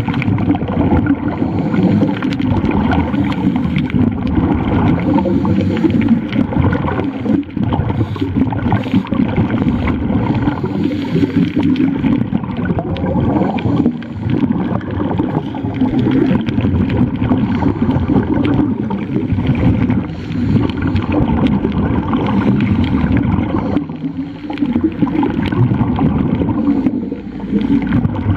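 Muffled underwater gurgling and bubbling heard through a submerged camera: a scuba diver's exhaled bubbles and water moving around the housing. It is a dense, steady rush with a few brief dips.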